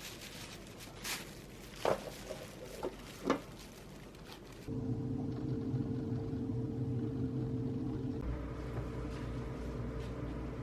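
A few light clicks and knocks, then a steady electric hum starts about halfway through, like a small motor or appliance running, and cuts off suddenly at the end.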